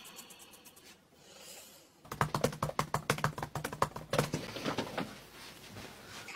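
Typing on a MacBook laptop keyboard: a quick run of key clicks starting about two seconds in and lasting about three seconds, trailing off near the end.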